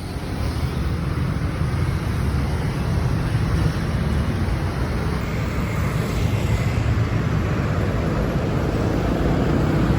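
Steady low rumble of road traffic or a moving vehicle, with an even hiss over it.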